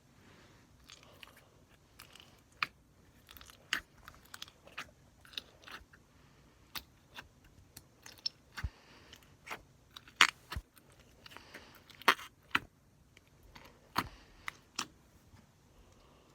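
Slime being squeezed and pressed by hand close to the microphone, making irregular sharp clicks and pops between softer squishing.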